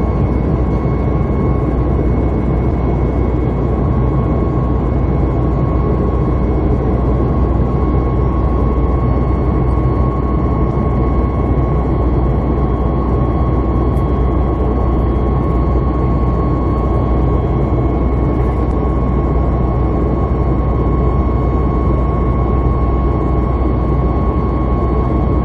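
Steady cabin noise of a Boeing 737-800 in flight: its CFM56 jet engines and the airflow make a constant rushing drone with a steady high whine.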